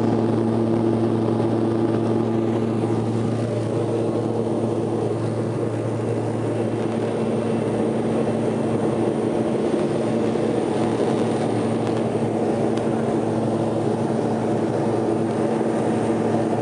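Turboprop engine and propeller heard from inside the passenger cabin in flight: a loud, steady drone of several steady tones over a rush of air. The lowest tone fades out about seven seconds in.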